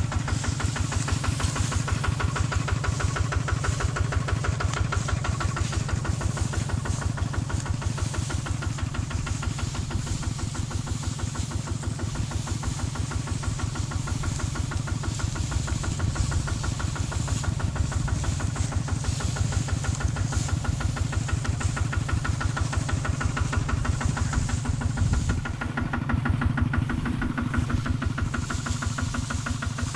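A farm vehicle's engine idling steadily, with an even, rapid beat.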